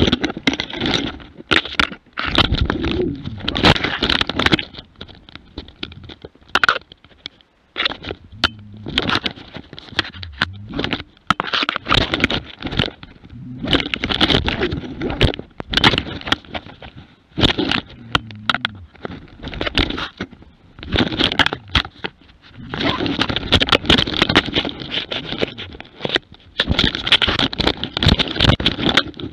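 Rough, irregular scraping, crackling and thumping from a harness-mounted camera on a jämthund hunting dog as it struggles with an attacking wolf, with fur and forest undergrowth rubbing against the microphone. Short quieter lulls break up the commotion.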